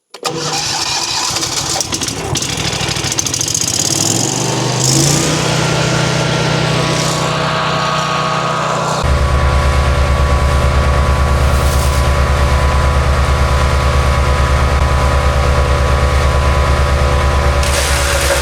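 MechMaxx B200 wood chipper's gasoline engine running and speeding up over the first few seconds, then holding a steady speed. About halfway in, a louder, deeper drone joins and continues.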